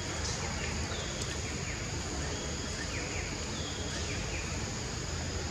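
Forest ambience: a steady high insect drone over a low steady rumble, with a few short scattered chirps.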